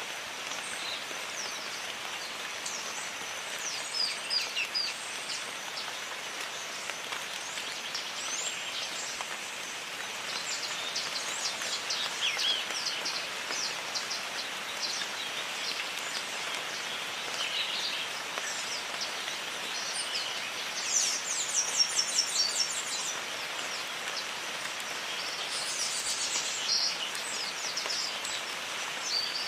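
Steady rain hiss with birds chirping and whistling over it, including a quick run of repeated high notes about two-thirds of the way through.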